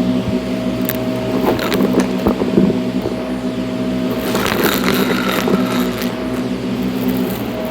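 Shark NV351 Navigator Lift-Away upright vacuum cleaner running with a steady motor hum, with crackling, crunchy rattles of debris being sucked up, about a second and a half in and again around four and a half seconds.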